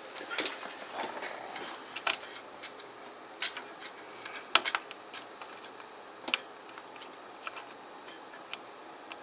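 Irregular small clicks and taps of cable connectors being handled and pushed into place inside a computer case, the sharpest about two, three and a half and four and a half seconds in.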